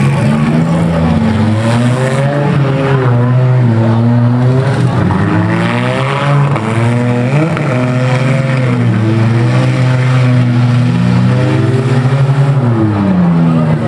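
Several demolition derby cars' V6 and V8 engines running at once, revving up and down together in a loud, continuous din.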